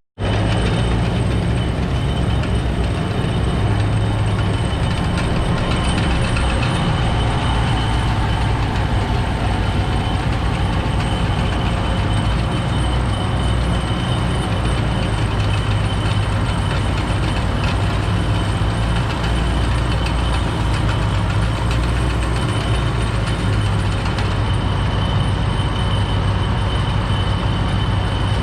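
Tractor engine running steadily while pulling a round baler through the hay, with a thin high whine held over the low drone.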